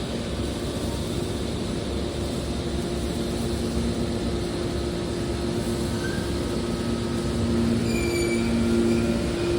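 Scrap copper baler running: a steady hydraulic machine hum with two steady tones. It grows louder about three-quarters of the way through, when a few brief higher whines come in.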